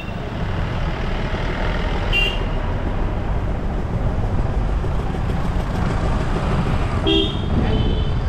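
Car driving, with a steady engine and road rumble, and a vehicle horn honking briefly about two seconds in and again with a longer toot about seven seconds in.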